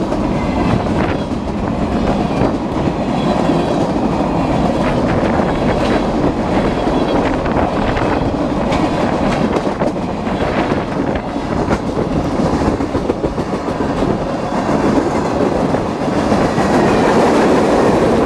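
Freight train cars, autoracks among them, rolling past at speed close by: a steady rumble of steel wheels on rail with irregular sharp clicks as the wheels cross rail joints, a little louder near the end.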